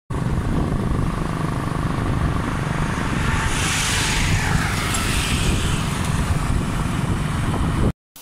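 A vehicle travelling along a highway: steady rumbling road and wind noise, with a hiss that swells and fades midway, cutting off abruptly near the end.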